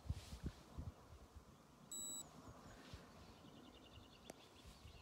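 Quiet lakeside ambience: faint bird chirps and a few low bumps on the phone's microphone, with a short electronic beep about two seconds in.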